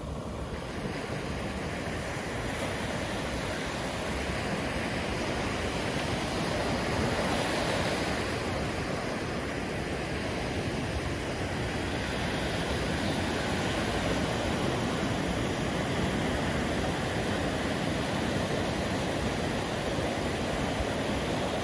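Ocean surf on a sandy beach: small waves breaking and washing up the shore in a continuous rushing wash, swelling a little louder about seven seconds in.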